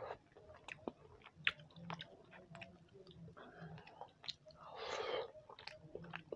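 Faint close-up chewing of soft khichdi eaten by hand, with scattered small mouth clicks and a short breathy hiss about five seconds in.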